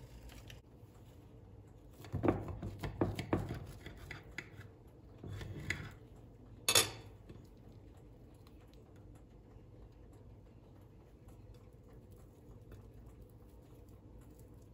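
Kitchen utensils and dishes being handled: a quick run of clinks and taps about two seconds in, a few softer ones a little later, and one sharp click about seven seconds in.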